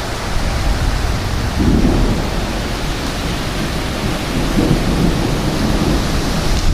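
Steady loud wind and rain of a severe thunderstorm, with deeper swells in the sound about a second and a half in and again around four and a half seconds in.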